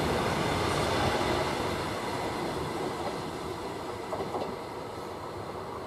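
Caledonian Sleeper coaches rushing past at speed on the rails, the noise fading steadily as the tail of the train draws away.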